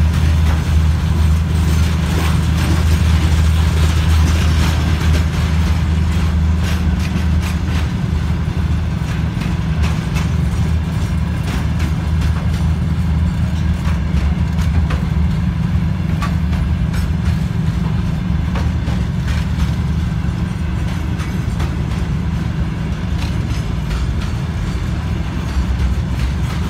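Freight train of covered hopper wagons rolling past: a steady low rumble with irregular clicks and knocks from the wheels.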